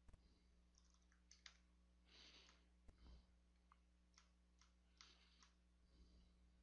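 Near silence, with faint computer keyboard keystrokes at scattered, irregular intervals.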